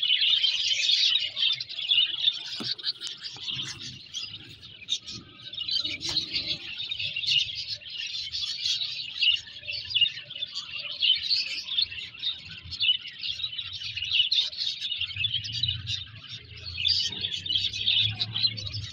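Many small birds chirping continuously, a dense overlapping twitter with no pause.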